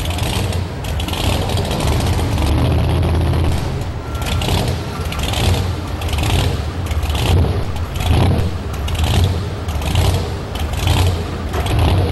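A supercharged pulling-truck engine idling with a heavy rhythmic lope, pulsing about twice a second like a heartbeat.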